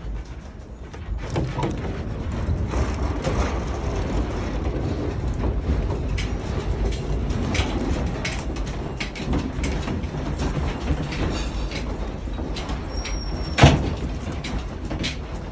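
A house rattling and rumbling as it shakes in a strong earthquake: a steady low rumble with rapid rattles and knocks, building about a second in, and one loud bang near the end.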